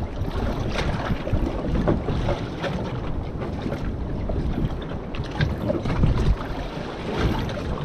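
Strong wind buffeting the microphone in an uneven low rumble, with water slapping and splashing against the hull of a small boat.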